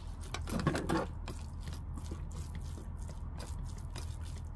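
Quiet eating sounds: a spoon scraping and lightly clicking in a bowl of rice, with soft mouth noises, over a low steady hum.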